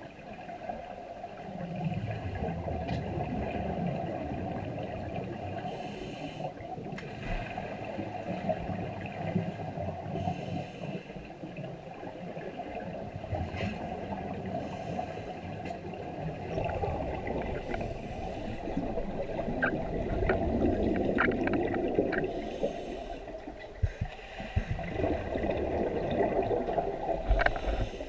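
Scuba regulator breathing heard underwater: a short hiss on each inhale every few seconds, with the rumbling bubble noise of exhaled air between.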